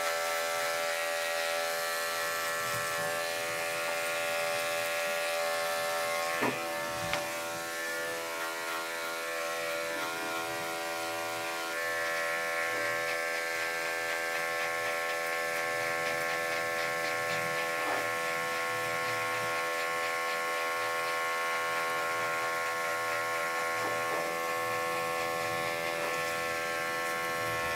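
Corded electric dog clippers with a #40 blade running steadily, with a slight change in pitch about twelve seconds in and a couple of soft knocks near the start.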